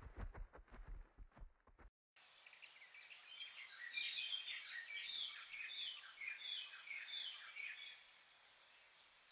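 Savanna ambience: birds calling with repeated short chirps and whistles over a steady high tone. In the first two seconds a run of dull thumps cuts off abruptly.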